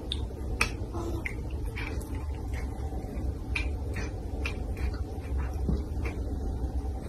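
A cat nibbling and chewing at a treat held in a person's fingers: irregular small clicks and smacks, several a second, over a low steady hum.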